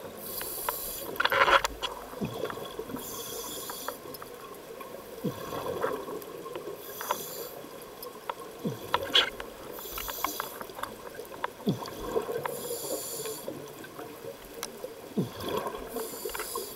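Scuba diver breathing through a regulator underwater: a short hiss with each inhalation, six breaths about three seconds apart, and bubbling of exhaled air between them.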